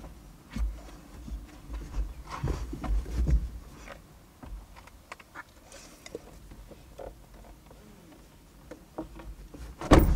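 Rustling and bumping of a bedsheet being handled and spread over a car's passenger seat, with scattered low thumps and small clicks. A single loud knock comes just before the end.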